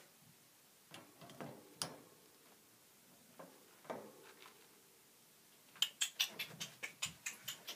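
Hamster stirring and digging in loose wood-shaving bedding: scattered soft rustles and ticks, then a quick run of sharp crackling clicks from about six seconds in.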